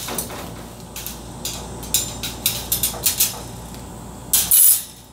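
Hatching eggs clicking against each other and against the incubator's egg-turning tray as they are set in by hand: a string of light, irregular clicks. A louder scrape comes about four and a half seconds in.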